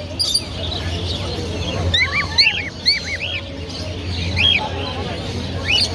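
Cockatiels chirping in short, arched calls: a quick run of calls about two seconds in, more a little later, and another just before the end, over a steady low hum.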